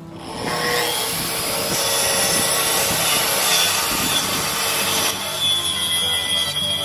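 Circular saw on an aluminium guide rail cutting lengthwise through a thick walnut live-edge slab. The cut comes up over the first second and then runs steadily.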